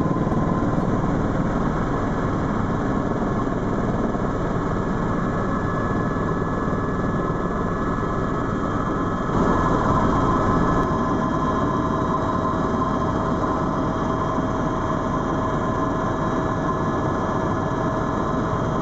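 Eurocopter EC130 EcoStar helicopter in flight, heard from inside the cabin: a steady rush of rotor and engine noise with a high turbine whine. It steps up slightly in level about nine seconds in.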